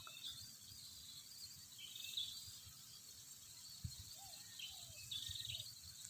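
Quiet rural ambience with a few faint, scattered bird chirps and short insect trills.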